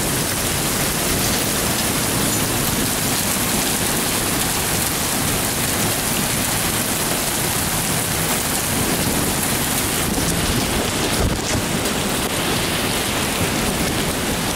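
Heavy thunderstorm rain pouring down steadily, an even, dense hiss.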